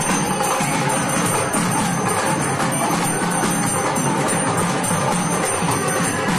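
Music with busy percussion and jingling bells, at a steady level throughout.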